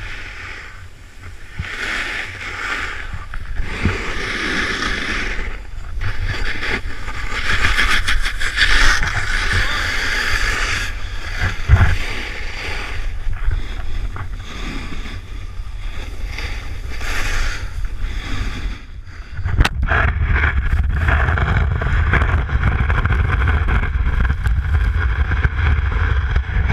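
Snowboard sliding and carving on snow, the edge scrape swelling and fading with each turn, under constant wind buffeting on the camera microphone. A sharp knock comes about two-thirds of the way in, after which the wind rumble is heavier.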